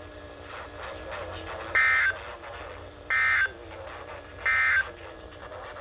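Three short bursts of Emergency Alert System (SAME) digital data tones, each about a third of a second long and about a second and a half apart, over faint radio hiss and hum. This is the end-of-message code, signalling that the tornado warning broadcast has finished.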